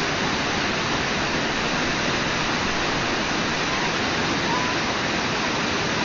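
Brooks Falls on the Brooks River in Alaska: whitewater rushing steadily over the falls and the rocks below.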